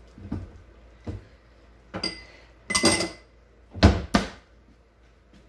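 Pots, pans and utensils being handled on a kitchen stovetop: a run of separate knocks and clinks, two of them ringing like metal, then two heavy thuds, the loudest sounds, about four seconds in.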